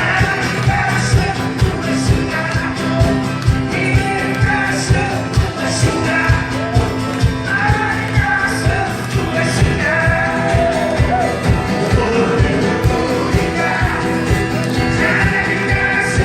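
Live band playing a rock-style song with a steady drum beat and sustained instruments; a stretch with no sung words.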